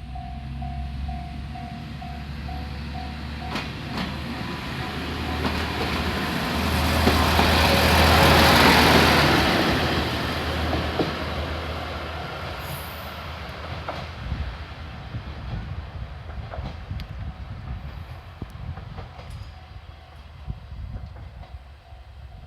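Japanese level-crossing warning bell ringing in quick, even dings, stopping about three and a half seconds in. A diesel railcar then passes the crossing: its engine hum and wheel noise swell to a peak about eight to nine seconds in and fade away, with sharp clicks of wheels over the rail joints as it goes.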